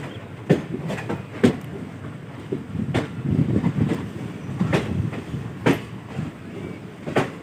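Train wheels clacking over rail joints and points at irregular intervals, over a low rumble of the moving train.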